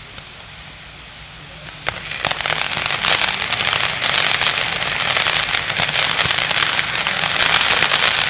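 Firework sun, a wheel of pyrotechnic fountains, burning: a soft hiss at first, then a sharp crack about two seconds in. The sound swells into a loud, steady, crackling hiss of spraying sparks as the wheel comes to full burn.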